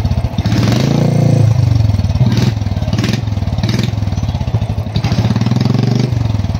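Royal Enfield Thunderbird 350X's single-cylinder engine running with a steady beat of firing pulses, revved up briefly about half a second in and again around five seconds. It is exhausting through the bend pipe fitted with a booster and packing, with no silencer bottle on yet.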